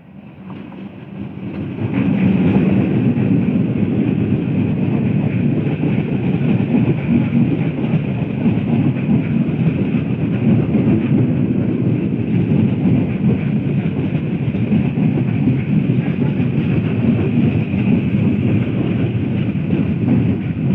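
An electric multiple unit (EMU) local train draws near, getting louder over the first two seconds, then runs close by. Its coaches keep up a loud, steady noise of wheels on rails.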